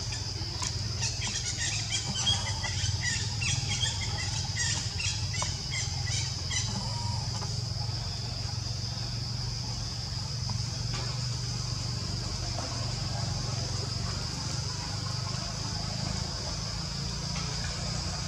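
Forest ambience: a steady high insect drone with a low rumble beneath, and over the first six or seven seconds a rapid run of short, squeaky high-pitched calls.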